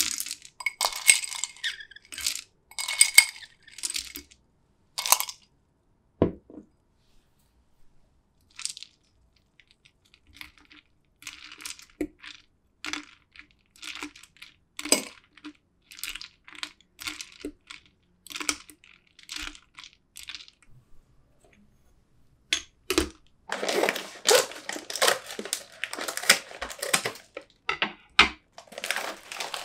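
Ice cubes drop and clink into a tall glass. Then a long metal spoon stirs the iced drink, clinking against the ice and the glass in a regular run. Near the end a plastic chip bag crinkles as it is handled and opened.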